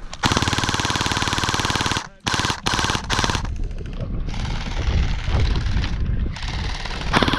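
JM J12 AK-style electric gel blaster with full-metal internals firing full-auto: a fast, even gearbox rattle of shots. It starts a moment in and breaks off briefly about two seconds in. A few short bursts follow, then longer firing runs on to the end.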